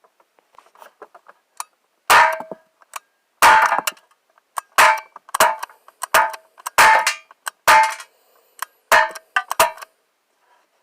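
Gamo P-430 CO2 pistol firing about nine quick shots, each a sharp crack followed by a brief metallic ring.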